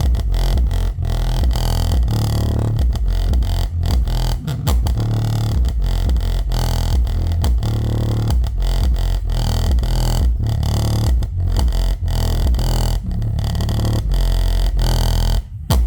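Bare Sony SA-WSF200 6.5-inch subwoofer driver playing bass-heavy electronic music, loud and distorted, with an awful noise that the owner first suspected meant a blown driver and later traced to a loose dust cap. The music cuts off suddenly near the end.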